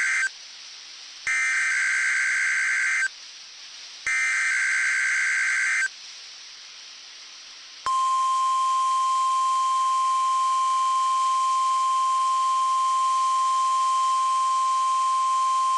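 NOAA Weather Radio Specific Area Message Encoding (SAME) alert header: the end of one digital data burst, then two more full bursts about a second apart. After a short pause, the steady single-pitch 1050 Hz weather radio warning alarm tone starts about 8 seconds in, the signal that automatically activates alert receivers, here opening a test alert.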